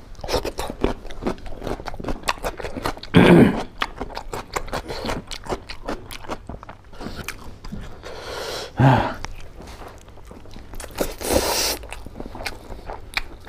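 Close-up eating sounds: a person chewing and crunching food with wet mouth clicks and smacks, and a few louder mouth noises about three, nine and eleven seconds in.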